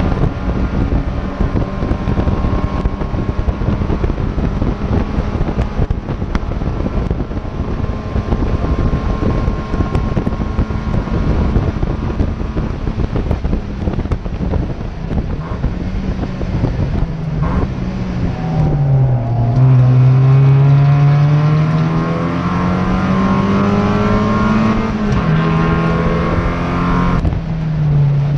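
Race car engine heard from inside the stripped cockpit, over heavy wind and road noise. It holds steady revs at first, falls about two-thirds of the way through, then climbs steadily and steps down twice near the end with gear changes.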